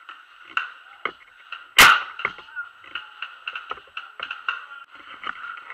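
Paintball gunfire: scattered sharp pops and cracks from markers firing and paintballs striking, with one loud close shot about two seconds in, over a steady background hum.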